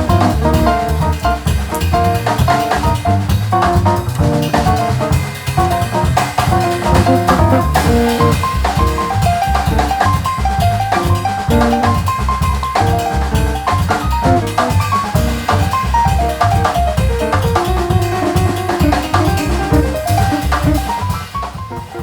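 Background music: a jazzy instrumental with drum kit, bass and melodic notes, fading out near the end.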